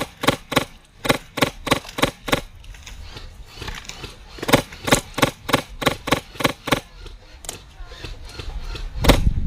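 Polarstar HPA-powered Krytac airsoft rifle firing strings of sharp semi-auto shots, about three to four a second. Wind rumbles on the microphone near the end.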